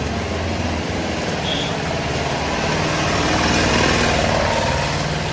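Steady street traffic noise with a vehicle engine running close by. Around the middle, liquid poured over the chaat mix on the hot flat iron griddle adds a brighter sizzle.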